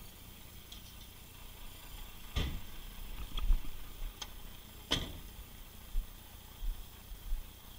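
Knocks and thumps of someone climbing down out of a fire truck's cab, the two loudest about two and a half and five seconds in, followed by a few soft footsteps on the paved path.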